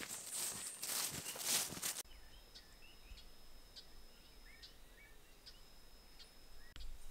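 Footsteps in rubber boots swishing through grass for about two seconds. Then, after an abrupt drop in level, scattered short bird chirps and a thin, high, steady tone that stops and starts.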